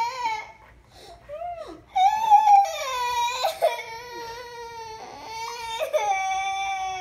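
A young girl crying: a short sob, a brief pause, then a long, high-pitched wail that starts about two seconds in.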